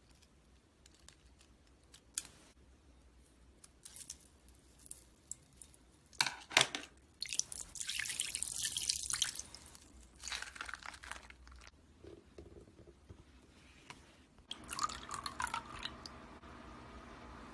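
Water wiggle slime being squeezed and handled, making wet squelches and small clicks. There is a sharper squelch about six and a half seconds in and a longer wet squishing stretch around eight seconds.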